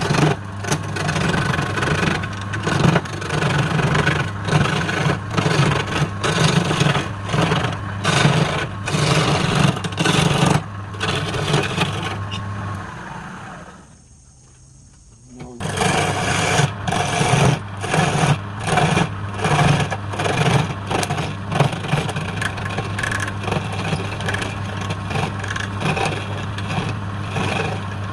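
Wood lathe running with a turning tool scraping and cutting the spinning wood, over a steady motor hum. About halfway through, the sound dies away for a couple of seconds and then starts again abruptly.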